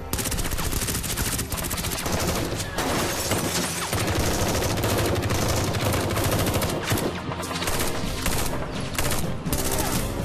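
Rapid gunfire of a firefight, many shots a second overlapping one another.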